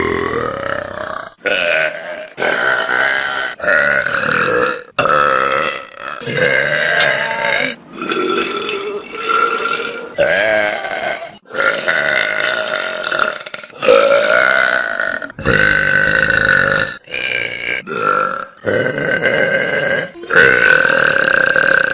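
Loud, drawn-out human burps, one after another, each a second or two long and pitched, with abrupt cuts between them.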